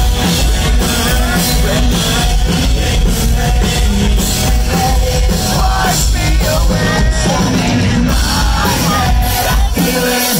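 Live pop-punk band playing a song: sung vocals over loud guitars and a steady drum beat.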